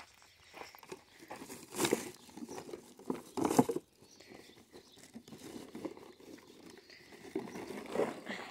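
Plastic bottles and carrier bags crinkling and rustling as a bag of recycling is handled. There are two louder crackling surges, about two and three and a half seconds in, then softer rustling.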